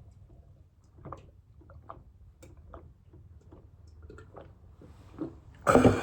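A person gulping down a glass of milk: a run of soft, evenly spaced swallowing clicks, about two a second. Near the end comes one sudden, much louder sound.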